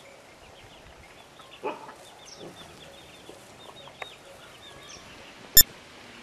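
Chickens clucking, with one louder call about one and a half seconds in, over a steady scatter of small birds chirping. A single sharp click sounds near the end.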